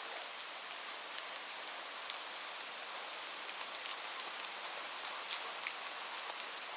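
Light rain falling steadily: a soft, even hiss with many distinct drops ticking on a surface.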